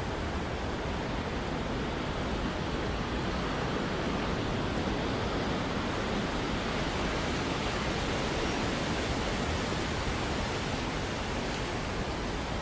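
Steady, even wash of outdoor city background noise with no distinct events.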